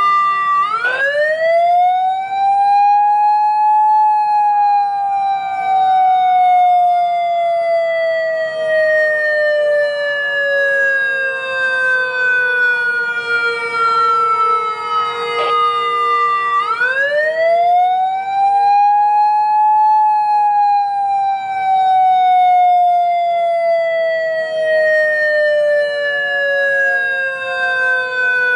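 Homemade mini ACA Alertronic AL-1000 electronic siren sounding a slow wail. The pitch rises quickly over about three seconds, then falls slowly for about twelve seconds, and rises again about 17 seconds in. A fainter steady tone holds underneath throughout.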